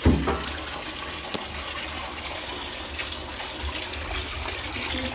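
Water running in a bathtub, a steady rush, with a loud thump right at the start and a short click about a second and a half in.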